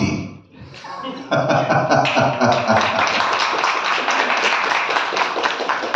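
Applause, many people clapping. It starts thinly just after a brief lull and swells to full about a second in.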